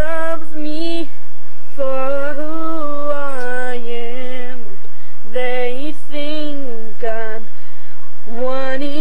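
A girl singing a made-up tune without accompaniment, in long held notes that slide in pitch, in phrases broken by short pauses.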